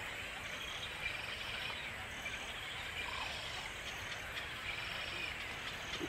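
Steady background chorus of small calling animals, with a higher buzzing note that repeats about every two seconds.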